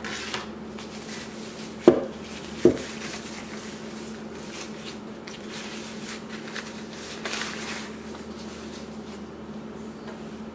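Packaging rustling as a camera body is unwrapped from bubble wrap and a soft wrapping sheet. There are two sharp knocks on the wooden table about two seconds in, a little under a second apart.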